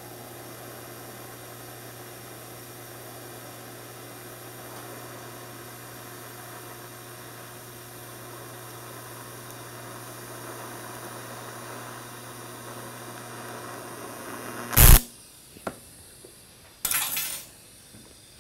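TIG welding arc running steadily with a hum and hiss while 1/8-inch filler rod is fed into a wide gap in a fillet joint on thin-wall tubing. The arc stops about 15 seconds in, followed by a single loud knock, a light click and a short clatter about two seconds later.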